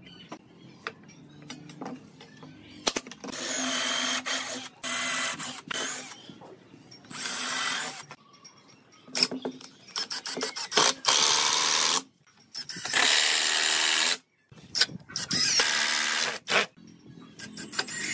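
A cordless drill fitted with a long bit drives long screws into the joints of a wooden frame, in repeated spurts of one to two seconds. The spurts begin about three seconds in, after a few faint clicks of handling.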